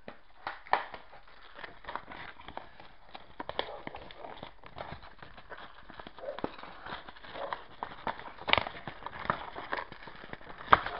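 Toy packaging being handled and torn open by hand: irregular rustling and crinkling with many small clicks and ticks.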